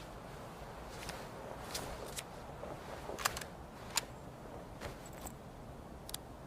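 Sharps single-shot rifle being handled just after a shot: a string of short, sharp clicks and knocks, about eight spread unevenly over six seconds, against a faint steady outdoor background.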